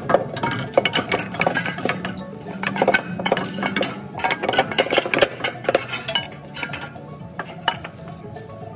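Irregular metallic clinks and taps as a metal carrier-bearing bracket and its bolts are handled and fitted against the engine block, over background music. The clinking dies away about six seconds in, leaving the music.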